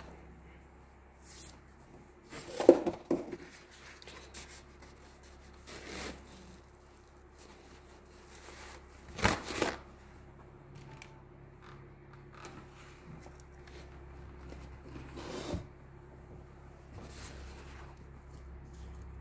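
Paper and craft materials handled on a wooden worktable: intermittent rustling and a few sharp knocks, the loudest about three seconds in and again near nine seconds, over a faint steady hum.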